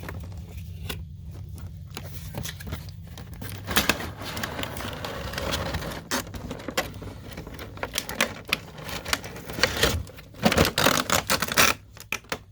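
Cardboard box and plastic packaging being opened and handled: irregular rustling, crinkling and clicks, loudest near the end, over a low steady hum that stops about ten seconds in.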